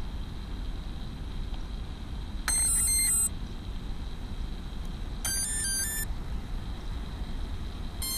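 A 120 A brushless ESC's start-up tones on an electric RC truggy: two short runs of stepped beeps, about two and a half seconds in and again about five seconds in, the first the louder. They signal that the ESC has just been powered on and is arming.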